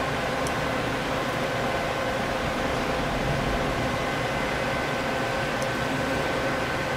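Doosan Puma 2500LSY CNC lathe running under power: a steady mechanical hum with a constant high whine and no change in speed.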